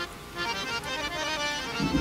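Instrumental background music with a reedy melody of held notes, in the manner of an accordion or harmonium, under the opening titles.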